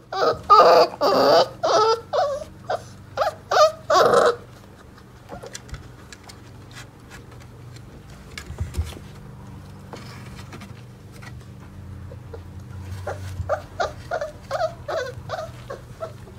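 Four-week-old mastiff puppies whining and crying: a loud, dense run of cries for the first four seconds, then a quieter stretch, then a string of shorter whines near the end.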